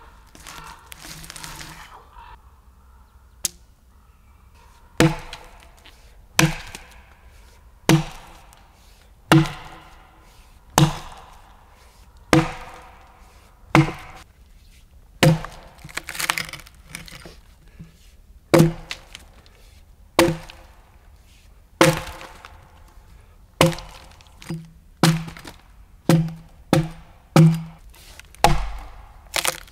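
Axe blows chopping into a log, one about every second and a half, coming quicker near the end, as notches are scored along the log for hewing.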